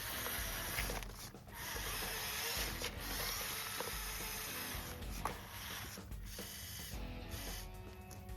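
The small electric motor and plastic gears of a Lego Technic model run with a steady grinding whir, stopping briefly about three times.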